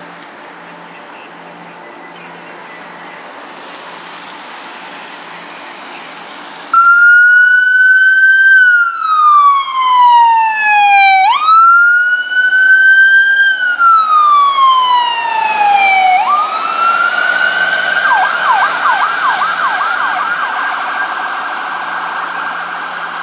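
Electronic siren on a fire command Ram pickup, cutting in abruptly over a low steady rumble about a third of the way in. It wails in long downward sweeps, then switches to a higher held tone with rapid warbling sweeps, and fades as the truck drives away.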